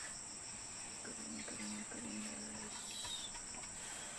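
A chorus of insects, likely crickets, keeps up a steady high-pitched trill with a fast even pulse.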